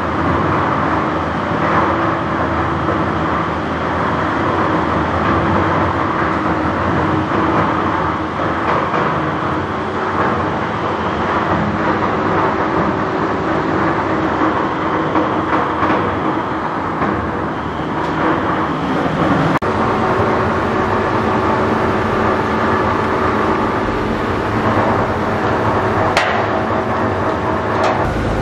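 Plastic film agglomerator running with its rotor spinning, while waste film is fed in on its belt conveyor. It makes a steady, loud mechanical noise with a continuous hum. There is a single sharp click near the end.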